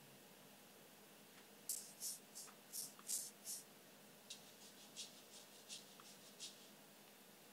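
Faint shaker loop samples being previewed: short hissy shakes in a loose rhythm, a louder run of about six starting near two seconds in, then a quieter run of about eight.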